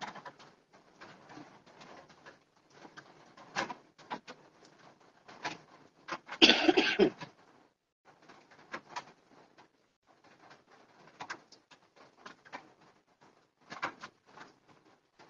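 Fabric rustling and small knocks as a jacket is handled and laid on a table, with one louder rustle lasting about a second, about six seconds in.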